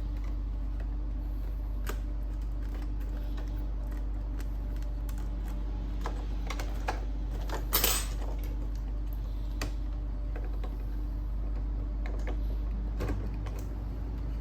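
Scattered light clicks and taps of an Epson L6290 inkjet printer's parts being handled and worked on during print-head replacement, with a brief louder scrape about eight seconds in, over a steady low hum.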